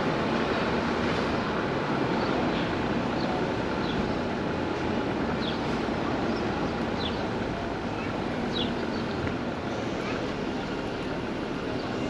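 Town street ambience: a steady hum of traffic and people's voices, with short high chirps now and then.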